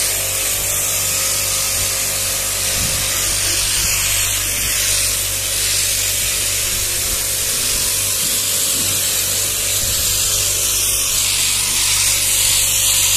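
StarQ W3 electric pressure washer running steadily: its motor and pump hum under the loud hiss of the fine water jet, as a car is rinsed with plain water to wash off sand.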